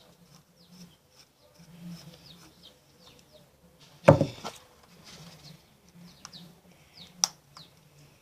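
Small birds chirping repeatedly in short, high, downward-sliding calls, with one loud knock about four seconds in and a sharp click near the end.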